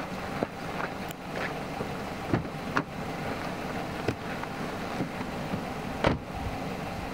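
Footsteps in snow, then the knocks and clicks of someone climbing into a car, ending in one heavy car-door thud about six seconds in, over a steady background hiss.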